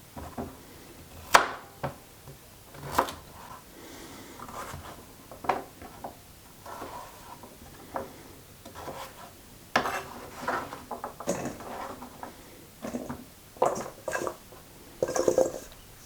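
A carrot being peeled and chopped on a wooden cutting board: irregular sharp knife knocks against the board, with softer scraping between them. The sharpest knock comes about a second in.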